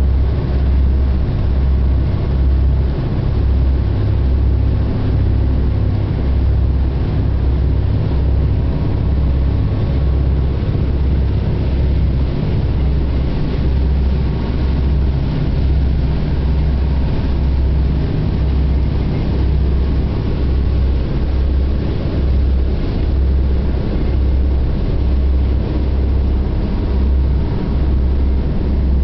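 The yacht's onboard engine running, heard from inside the boat as a loud, steady low drone that swells and fades a little under once a second.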